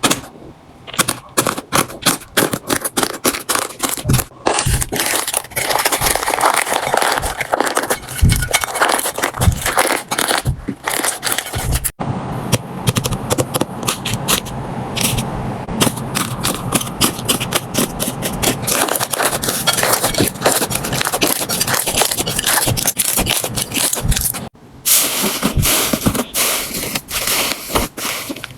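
Slime being squeezed, pressed and stretched by hand, giving dense crackling clicks and scraping sounds. There are short breaks about twelve and twenty-four seconds in.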